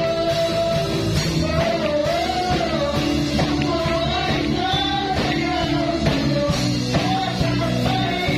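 Live worship band playing a Tagalog praise song: a man sings the lead melody into a microphone over a steady drum beat, electric guitar and keyboard.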